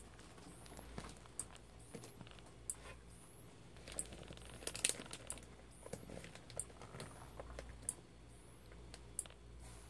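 Xenon strobe lamp flashing about every 1.3 seconds: each flash is a sharp click, followed by a very high whine that rises in pitch as the flash circuit recharges. A low steady hum runs under it.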